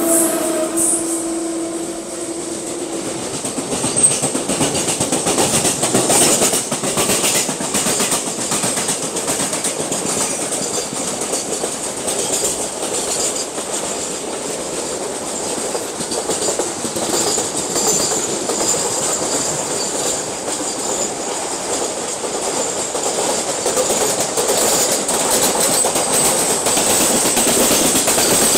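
A MEMU electric train running, heard at its open door: wheels clattering over the rail joints with a steady rush of wind and track noise. A container freight train rumbles and rattles past close alongside on the next track. A steady tone sounds for the first three seconds.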